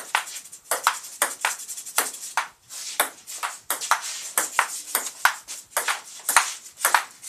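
Ping pong rally: the ball clicks off the paddles and the table about three times a second in a quick back-and-forth.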